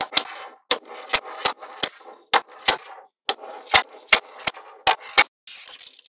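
Small magnetic balls snapping together as blocks of them are pressed onto a magnetic-ball wall: sharp, irregular clicks, about two to three a second, each with a brief metallic ring. Near the end the clicks give way to a softer rustle.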